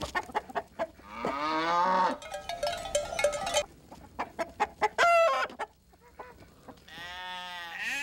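Chickens clucking in quick short calls, with a long rooster crow about a second in and another long pitched call near the end.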